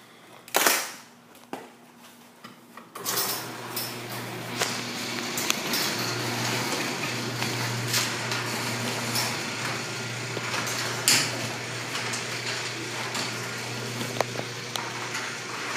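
Craftsman half-horsepower garage door opener starting about three seconds in and running steadily: a low motor hum under broad mechanical noise with a few knocks, as the door travels. The owner says its drive belt is loose.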